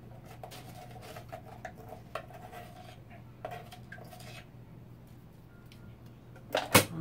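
Faint steady low hum with a few soft small clicks, then near the end a few sharp clinks of a utensil against a porcelain bowl of beaten eggs as salt is added.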